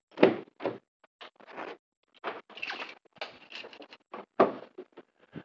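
Irregular rustling, scuffing and knocking of a police body camera jostled against its wearer's uniform as the officer moves about beside the patrol car. The loudest knocks come about a quarter second in and again just after four seconds.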